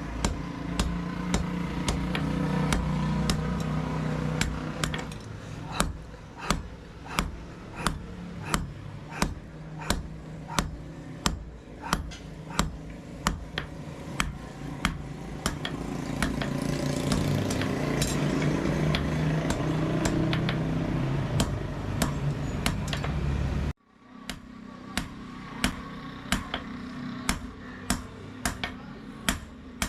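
Hand hammer striking steel on an anvil in sharp, ringing blows at a steady pace of about two a second, over a steady low hum. The hum cuts off abruptly about three-quarters of the way through while the hammering goes on.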